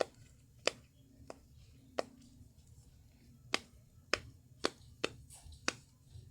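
Bow-shaped simple dimple fidget toy being pressed, its buttons popping through one after another with sharp clicks, about eight at uneven spacing.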